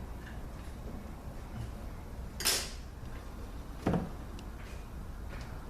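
Metal parts of a 722.6 automatic transmission handled on a workbench: a short scrape about two and a half seconds in, then a dull clunk about a second and a half later, over a steady low hum.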